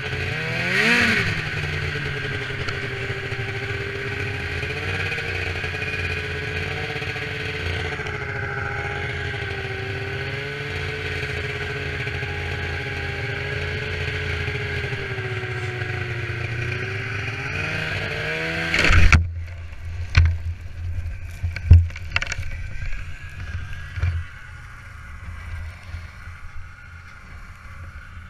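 2000 Polaris SKS 700 snowmobile's two-stroke twin engine running along at a fairly steady speed, with a brief rev about a second in. About 19 seconds in comes a loud crash as the sled hits a culvert, the engine note drops away, and several loud knocks and bangs follow as the sled comes to a stop.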